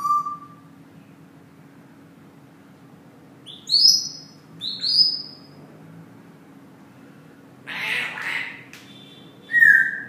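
Congo African grey parrot whistling: a short whistle at the start, two loud rising whistles about four and five seconds in, and a steady whistle near the end. A short noisy burst comes about eight seconds in.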